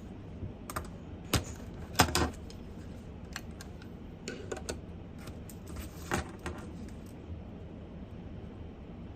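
Computer keyboard being typed on in short, irregular runs of keystrokes, the loudest clicks about two seconds in, over a steady low background hiss. The typing stops about two seconds before the end.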